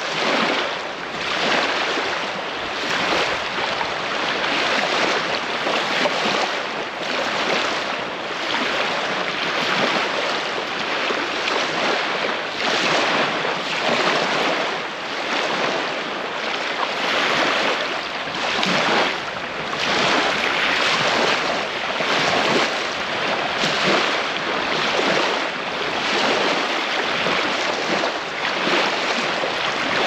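Small waves lapping onto a sandy beach: a continuous wash of surf that swells and fades every second or two.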